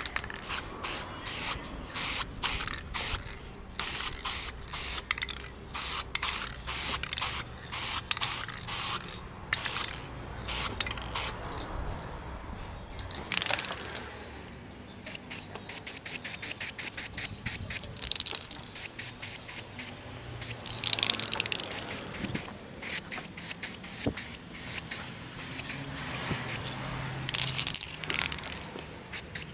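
Aerosol spray paint can hissing in many short bursts, then in a few longer passes from about the middle on, as a light first coat of matte black paint goes on.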